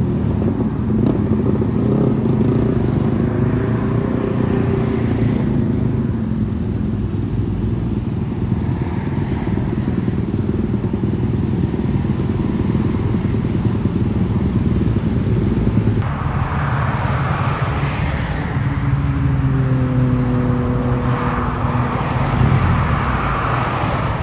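BMW inline-four superbike engines with Akrapovic exhausts running loud and steady, over road traffic noise. The sound changes abruptly about two-thirds of the way through, and soon after an engine revs briefly, its pitch shifting.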